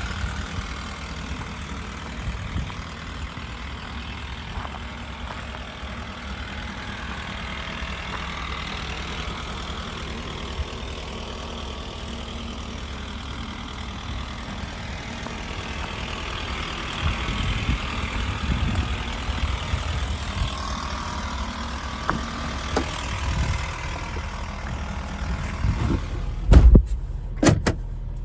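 The truck's 6.7 L Power Stroke V8 diesel engine idling steadily, with a few sharp knocks near the end.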